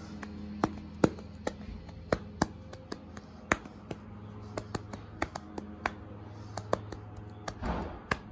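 A hand patting and slapping a horse's neck, in a run of sharp, irregularly spaced pats over a low steady hum. A brief rushing sound comes near the end.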